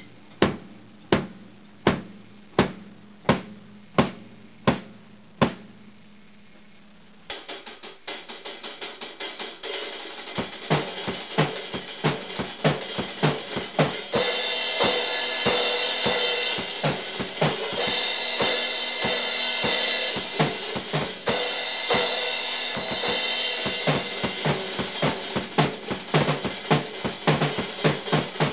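Acoustic drum kit being played: single drum strikes at a steady pulse, a little under two a second, for the first five seconds or so, a short pause, then a full beat of bass drum, snare and ringing cymbals that grows busier and louder.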